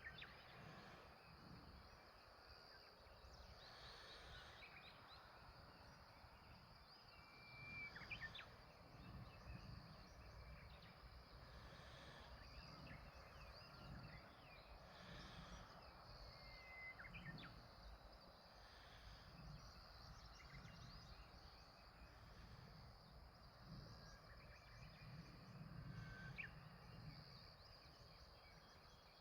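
Faint wild birds calling at dawn: short, scattered chirps and calls every few seconds over a steady low background rumble.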